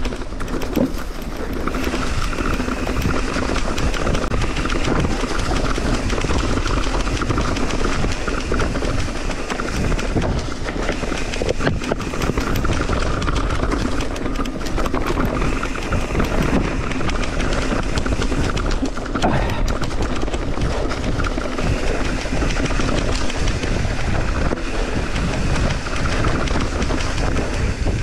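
Mountain bike riding downhill over a rocky, leaf-covered trail, heard from a camera on the handlebars: the tyres rumble, the bike rattles and knocks over the rocks, and wind buffets the microphone.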